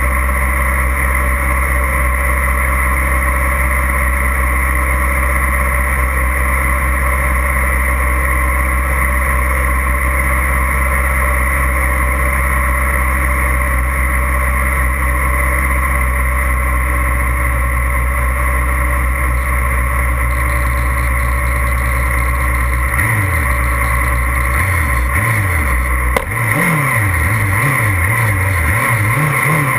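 Sport-bike engines idling steadily on a race start grid, the nearest a Yamaha R6's inline-four. From about 23 seconds in, the throttles are blipped again and again, the engine pitch rising and falling, as the riders ready for the start.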